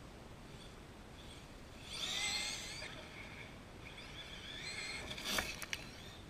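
Brushless electric motor of a Traxxas E-Revo RC truck running the Mamba brushless system, whining in two bursts with the pitch rising as it accelerates. Near the end a sharp knock, the loudest sound, is followed by two short clicks.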